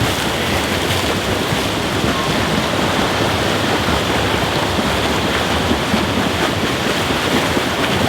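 Steady churning and splashing of water from swimmers doing laps in a pool.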